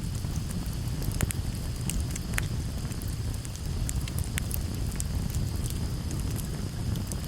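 Wood fire burning, with frequent irregular crackles and sharp pops over a steady low rumble.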